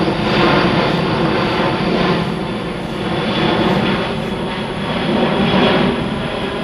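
Military aircraft flying overhead: loud, continuous engine noise that swells and eases every second or two, with a faint high whine.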